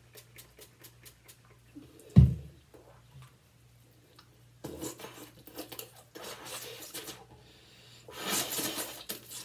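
Hands rubbing and scrubbing at the face to wipe off makeup, in two stretches of scrubbing in the second half. A few light clicks come at the start, and a single heavy thump about two seconds in is the loudest sound.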